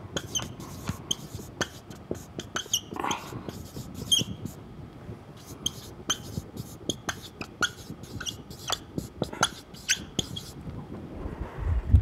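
Marker writing on a whiteboard: a quick, irregular run of short squeaks and scratches as each stroke is drawn, with a low thump near the end.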